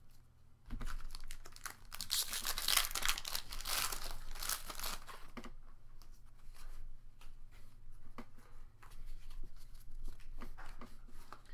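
A foil Pokémon booster pack being torn open and its wrapper crinkled, loudest for a few seconds near the start, then light clicks and rustles of the cards being handled.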